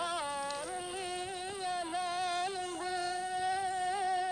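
A wordless singing voice holding one long, slightly wavering note, with small pitch dips partway through.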